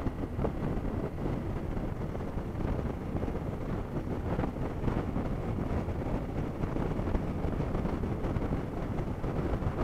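Steady wind rush buffeting the microphone of a camera mounted on a motorcycle at cruising speed, with the motorcycle's engine running underneath.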